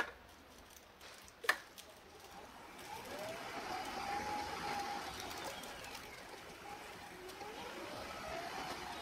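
Wheelchair rolling forward, with a thin whine that rises and falls in pitch over a steady rolling noise. Two sharp knocks come before it starts moving, the second, about a second and a half in, the loudest sound.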